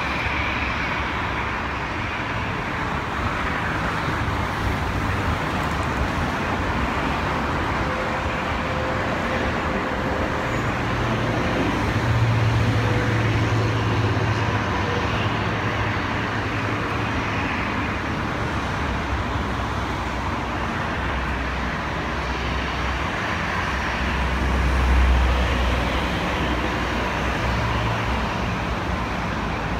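Steady noise of jet airliners taxiing at idle power, mixed with road traffic. A low rumble swells briefly about twelve seconds in and again near twenty-five seconds.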